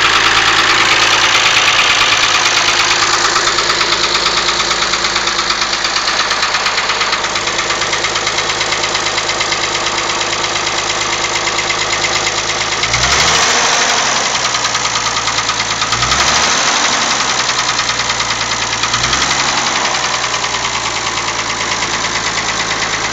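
Mazda MX-6's 2.5-litre KL-ZE V6 idling with a rapid, steady knocking. It is revved briefly three times, about three seconds apart, past the middle.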